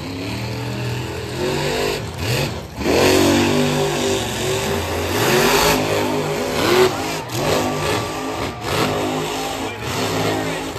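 Monster truck engine revving hard in repeated bursts, its pitch climbing and dropping as the truck pops up onto its rear wheels in a wheelie.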